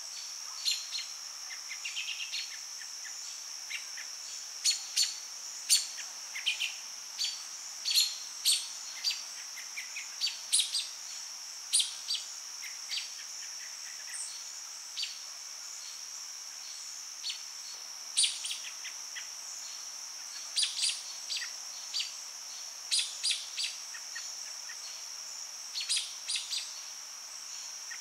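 Summer evening insect chorus: a steady, unbroken high-pitched drone, with short, sharp chirps breaking in irregularly over it, often several in quick succession.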